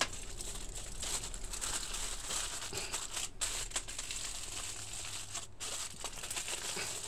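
Aluminium foil crinkling and rustling as it is folded and crimped shut into a parcel, a continuous irregular crackle.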